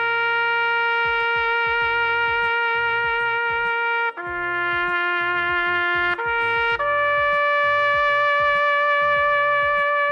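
Music: a brass-like lead holding long notes, stepping to a new pitch three times, over a pulsing bass line and a drum beat.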